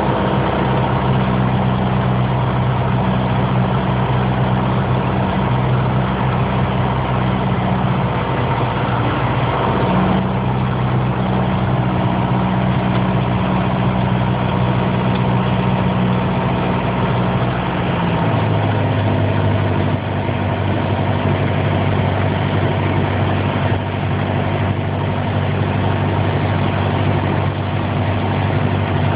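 Piper PA-28 light aircraft's piston engine and propeller running steadily, with a brief dip and recovery in the note about ten seconds in. About eighteen seconds in the engine note steps down to a lower pitch, a power change during the join for landing.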